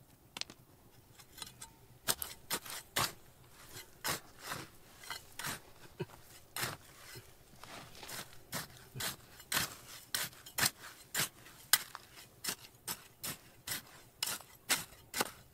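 A hand digging tool scraping into soil and stone in repeated rasping strokes, about two a second, starting about two seconds in.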